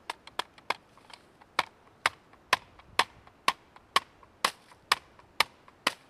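Mallet end of a Zippo 4-in-1 Woodsman hammering a wooden sapling stake into the ground: a steady run of sharp knocks, about two a second, lighter at first and harder from about a second and a half in.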